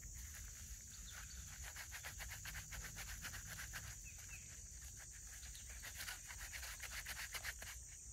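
Dry soil and grass crackling and rustling as gloved hands crumble it over a buried trap, a dense run of small crackles. A steady high insect drone runs underneath.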